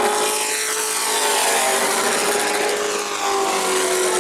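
Pro Truck race trucks running at speed on a short oval, engines at steady high revs, with the pitch of one dropping as it goes past about half a second in.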